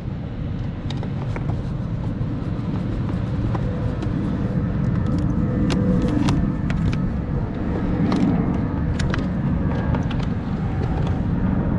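Small clicks and taps of a battery wire and its connector being handled and fitted onto an electric scooter's battery pack terminal, scattered irregularly over a steady low rumble.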